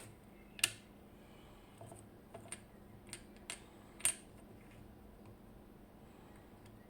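Small metal lock parts, the core and sliders of a disassembled slider lock, clicking and clinking as they are handled and set down on a hard surface. About seven sharp clicks, the loudest about half a second in and another around four seconds in.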